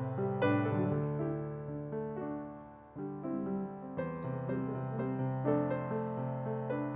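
Slow background piano music, sustained notes and chords; it fades down about three seconds in, then a new phrase begins.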